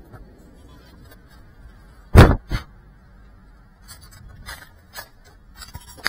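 Handling noise on the drone's onboard camera microphone as the drone is picked up off the ground: a loud thump about two seconds in, a smaller one just after, then light clicks and scrapes.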